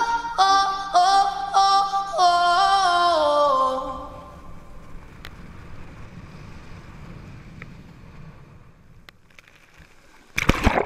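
Electronic pop music with a chopped, sung vocal line fades out over the first four seconds. A faint, steady rush of water and wind follows. Near the end comes a short, loud splash as the water skier goes down into the lake.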